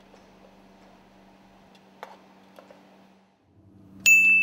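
Faint steady hum with a few light clicks. About four seconds in, a single loud, bright bell-like ding strikes and keeps ringing as it slowly fades.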